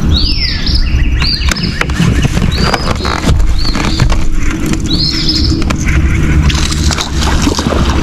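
A songbird calling over and over in short whistles that jump up and slur down, about one a second, over a low steady rumble.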